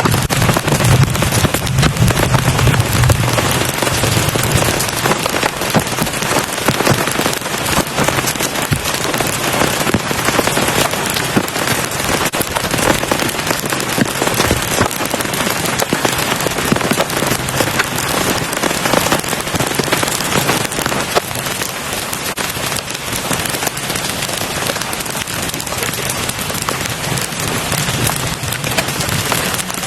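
Heavy rain falling steadily, a dense patter of many drops hitting a surface.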